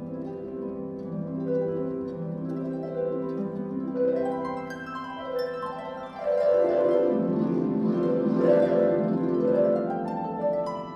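Concert pedal harp playing a passage of plucked notes, then about six seconds in breaking into louder sweeping glissandi that rise and fall across the strings and ring on.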